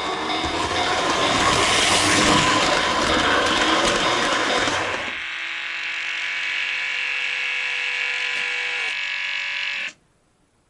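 O-gauge model train running over the model railroad crossing, a dense rumbling rattle for about five seconds, while the crossing's electronic warning bell keeps ringing with steady tones. The bell rings on alone after the train has passed and cuts off suddenly near the end.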